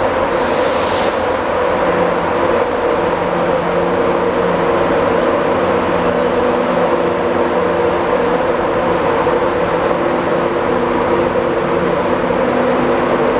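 Electric intercity train pulling away from a station platform: a loud, steady drone with several held hum tones, and a short hiss of air about a second in.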